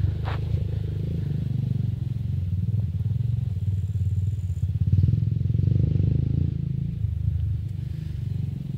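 ATV engine running steadily, getting louder about five seconds in and then easing off.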